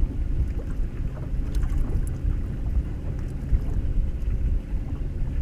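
Wind buffeting the microphone and water against a bass boat's hull: a low, uneven rumble with a few faint clicks.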